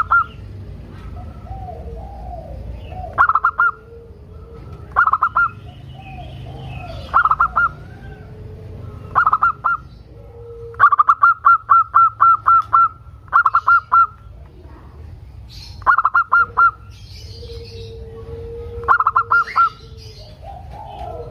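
Zebra dove (perkutut) singing: short clusters of quick, clear cooing notes, repeated every two seconds or so, with one longer run of about a dozen notes near the middle.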